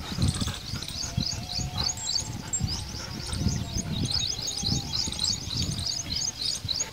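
Small birds chirping in quick, dense runs of short high notes, over irregular low thumps.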